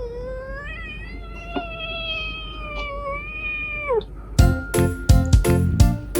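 A Scottish Fold cat giving one long, drawn-out meow that starts high, dips, holds steady and falls away about four seconds in. Music starts shortly after.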